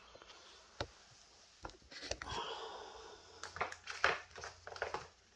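Faint handling sounds as a 3S LiPo flight battery is plugged into a brushless ESC: scattered clicks, a stretch of rustling wires, then a cluster of sharper clicks from the connector near the end.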